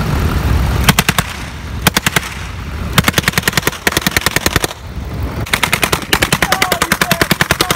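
Browning .30-calibre belt-fed machine gun, converted to fire a propane and oxygen gas mix, firing a series of short rapid bursts of about a dozen shots a second. The longest burst runs a little over a second, near the end.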